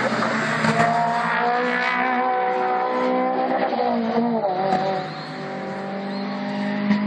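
Race car engines running hard on the circuit. The engine note holds high, then falls in pitch and the sound gets quieter about two-thirds of the way through.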